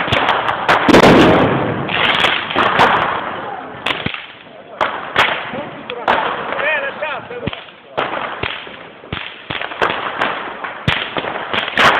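Fireworks and firecrackers going off: a string of sharp bangs and cracks at irregular intervals, the loudest blast about a second in.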